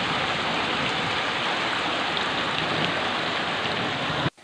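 Heavy rain pouring down, with floodwater rushing along a lane; the steady downpour cuts off abruptly near the end.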